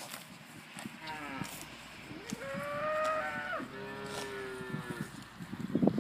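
Holstein Friesian cow mooing: one long moo starting about a second in, its pitch stepping down about halfway through. A few sharp knocks come near the end.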